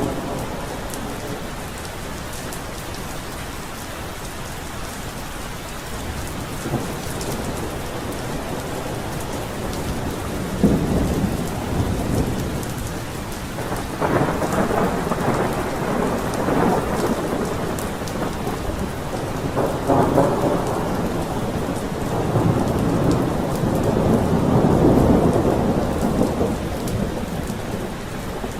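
Thunderstorm: steady rain falling throughout, with rolling rumbles of thunder that begin about a third of the way in and come several times, the longest and loudest near the end.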